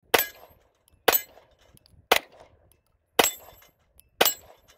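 FN 509C Tactical 9mm pistol firing five single shots, about one a second.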